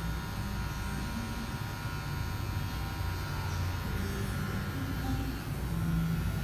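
Electric hair clipper buzzing steadily as it cuts short hair at the nape of the neck.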